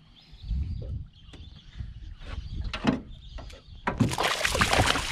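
Knocks and handling noise in a small fishing boat, then about four seconds in a loud burst of splashing as a hooked fish thrashes at the boat.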